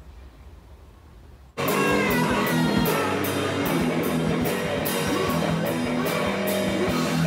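Faint outdoor ambience, then music cuts in abruptly about a second and a half in: loud rock-style music with guitar and a steady drum beat.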